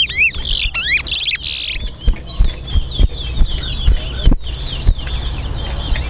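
Caged male towa-towa (large-billed seed finches) singing: whistled notes that rise in pitch and harsh buzzy bursts in the first two seconds, then fainter song.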